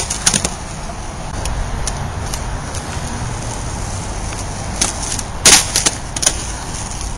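Inline skate wheels rolling over rough asphalt, a steady gritty rumble, with a few sharp clacks of the skates near the start and a cluster of them a little past the middle.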